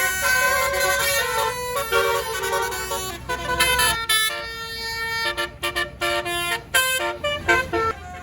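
A bus's multi-trumpet basuri telolet horn playing a tune of stepped notes, with quicker short blasts in the second half.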